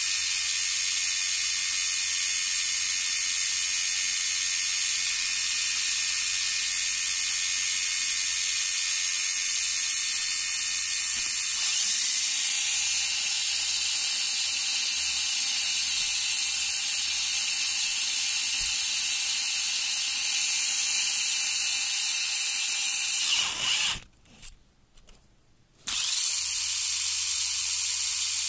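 Tamiya Mini 4WD AR chassis running in on the bench: its small electric motor and gear train whine steadily, with a gear noise. It changes slightly about twelve seconds in, stops for about two seconds near the end, then starts again.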